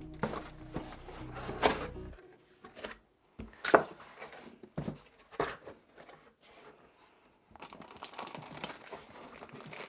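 Packaging crinkled, rustled and torn by hand as boxed accessories are unwrapped: scattered sharp crackles, then steadier crinkling in the last couple of seconds. Background music plays under it for the first two seconds, then stops.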